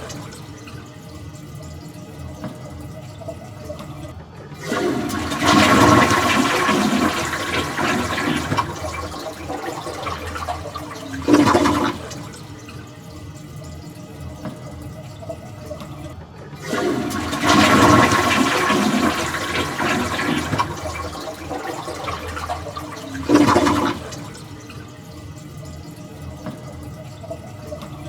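A toilet flushing twice: each flush is a loud rush of water lasting about six seconds that ends in a brief louder surge, then drops to a quieter steady run of water as the tank refills.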